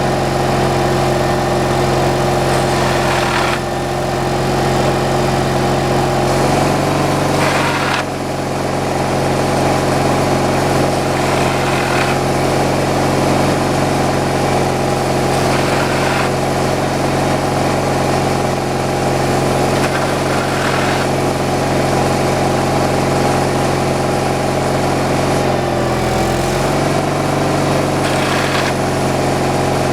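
Engine of a homemade slab-wood kindling cutter running steadily, its pitch dipping briefly twice as it takes load, with a short rasp about every four seconds.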